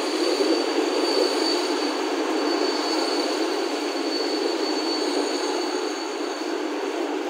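Open freight coal wagons rolling past. Their wheels make a steady, dense rolling rumble on the rails, with a thin high squeal running over it that fades near the end.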